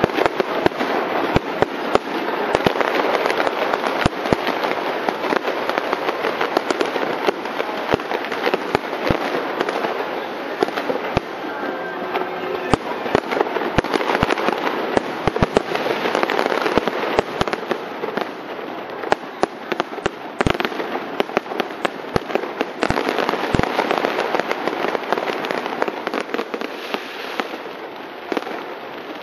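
Aerial fireworks display: dense crackling from bursting shells, with many sharp bangs.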